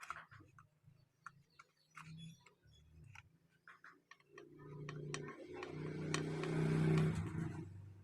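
Small scattered clicks and light metallic taps of parts and tools being handled. About halfway in, a louder steady motor-like hum with hiss swells for about three seconds, then fades out.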